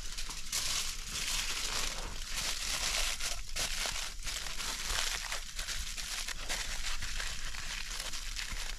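Aluminium foil crinkling as it is handled and folded by hand, a dense crackle of many small rustles throughout.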